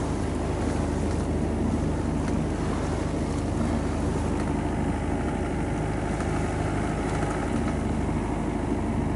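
Sailing yacht's inboard engine running steadily under way, a low even hum under the rush of water along the hull.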